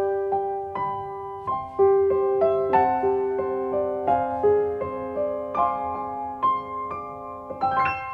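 Background music: a slow, gentle piano melody with notes struck one after another and left to ring.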